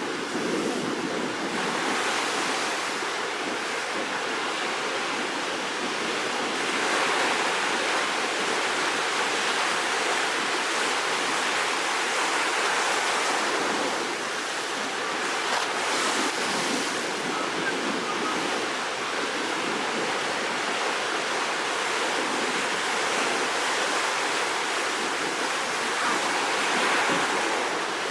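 Rough, storm-driven sea surf ahead of a typhoon: a continuous rush of breaking waves that swells louder every few seconds as waves break.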